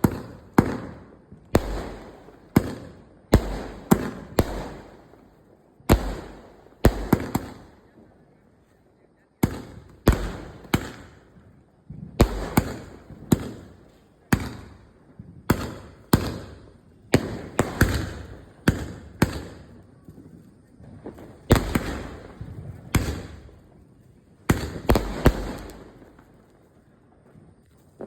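Cock Brand firecrackers going off in a long irregular series of sharp bangs, often two or three in quick succession, each fading away after it. There are brief lulls about eight seconds in and near the end.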